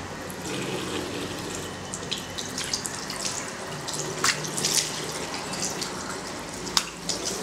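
Water running from a wall-mounted tap into a ceramic washbasin, after the tap is opened. Several sharp splashes cut through the steady flow, the loudest near the end.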